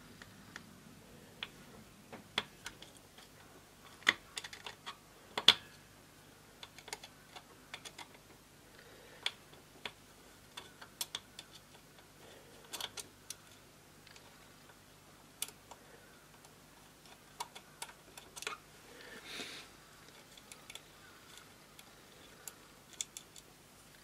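Irregular light clicks and taps of a small screwdriver and fingers working at a screw in a lighter part clamped in a bench vise, with a short scrape a little past the three-quarter mark.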